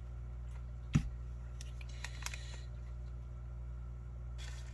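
Ration packets being handled on a table: one sharp knock about a second in, then a few light clicks and a soft rustle near the end, over a steady low hum.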